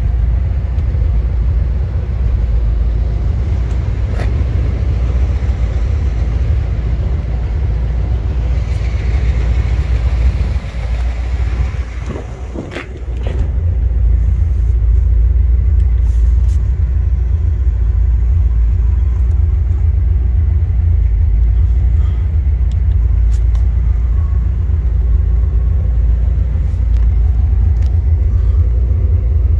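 1980 Corvette's V8 engine idling: a steady low rumble, dipping briefly about twelve seconds in.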